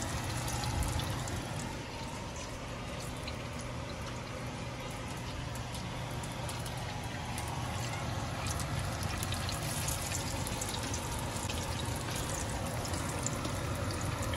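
Battered pakoras deep-frying in a pot of hot oil: a steady sizzle with scattered small crackles and pops.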